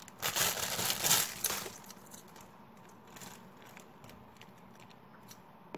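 Clear plastic bag crinkling as the corn squishy inside it is handled, in a few loud rustles over the first two seconds. After that only faint handling clicks remain.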